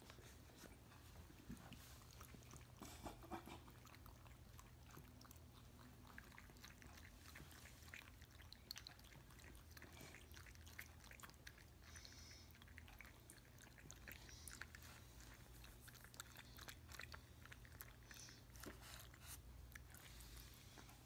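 Two cats lapping water from drinking glasses: faint, irregular wet ticks of their tongues flicking into the water.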